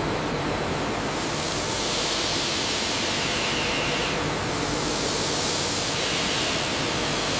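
Steady, even rushing noise at an unchanging level, starting abruptly.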